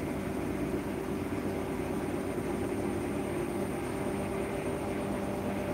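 Hotpoint NSWR843C front-loading washing machine running mid-cycle on a 60°C full wash: a steady mechanical hum with a couple of constant low tones and a faint high whine.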